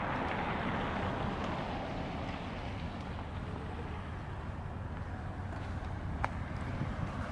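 City street traffic passing, a steady rush of tyres and engines, with a low wind rumble on the microphone. A brief sharp squeak about six seconds in.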